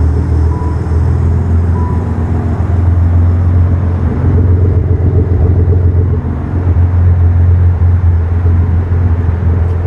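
Nissan 300ZX Twin Turbo's 3.0-litre twin-turbo V6 idling steadily just after a remote start. Two short beeps sound in the first two seconds.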